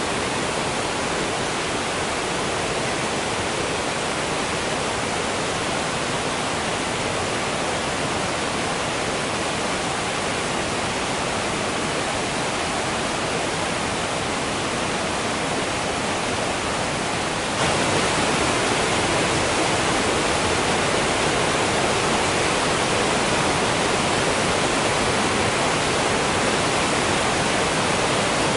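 Waterfall: a steady rush of falling water, with no distinct splashes. It jumps abruptly a little louder and brighter about two-thirds of the way through, then stays steady.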